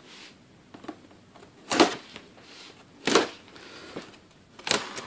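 Packing tape on a cardboard box being cut and torn open with a knife: three short scratchy rips, about a second and a half apart, with faint rustling of the cardboard between them.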